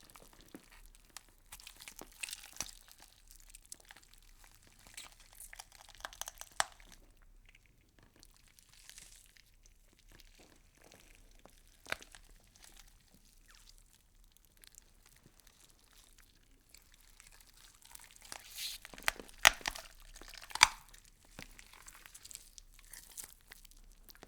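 Insects chewing on plant leaves: faint, scattered crunching and crackling clicks, with a busier run of sharper crackles near the end.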